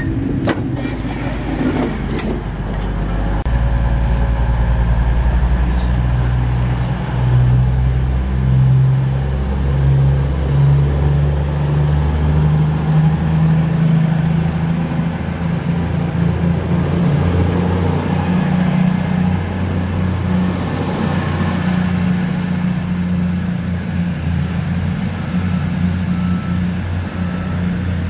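Class 222 Meridian diesel multiple unit pulling out of the station, its underfloor diesel engines rising in pitch as it accelerates over roughly the first fifteen seconds, then running steadily as it draws away. A few sharp clicks sound in the first two seconds.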